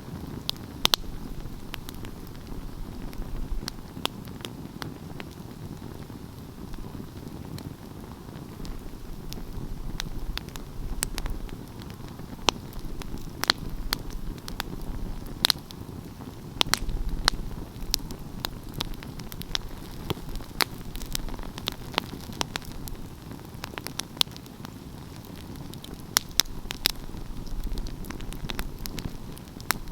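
Wood fire burning with a steady low rumble of flames and irregular crackling, with sharp snaps and pops from the burning wood.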